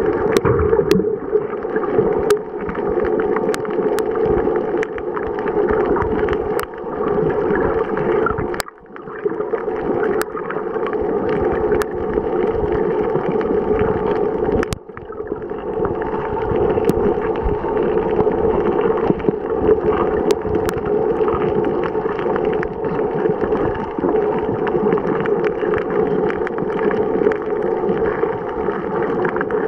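Muffled underwater noise picked up by a camera under the water: a steady dull rush of water and movement with scattered faint clicks, dropping away briefly twice, about a third of the way in and about halfway through.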